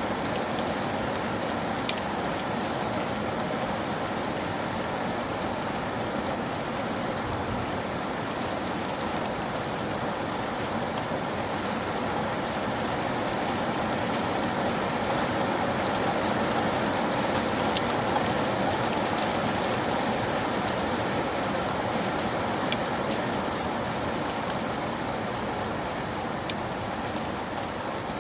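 Steady rain falling, with a few sharper single drop ticks here and there.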